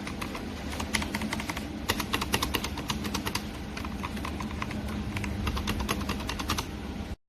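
Typing on a ZIYOU K3 full-size mechanical keyboard with red linear switches: a quick, irregular stream of keystroke clacks. It cuts off suddenly near the end.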